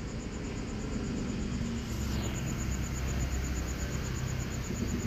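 Background ambience: a low, steady rumble like passing road traffic, with a high, evenly pulsing insect chirp throughout.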